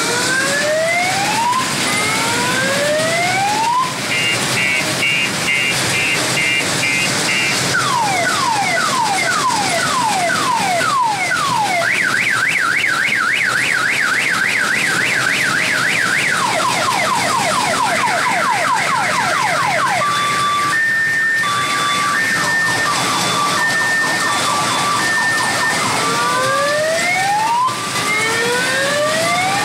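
Multi-tone electronic siren running through a car-alarm-style sequence: slow rising whoops, a rapid warble, falling sweeps, a fast up-and-down yelp, quick falling chirps, then a two-tone beeping, with the rising whoops starting again near the end.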